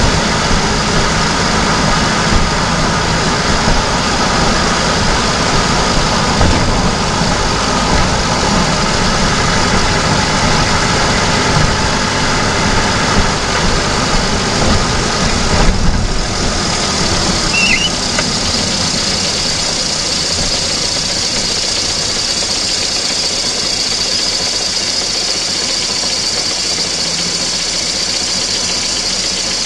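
VAZ-2109 engine running, recorded close up from under the bonnet while the car drives: a dense, steady engine and road noise. A short thump comes a little past halfway. Soon after, the deep rumble fades and the engine runs on more quietly with a hiss above it.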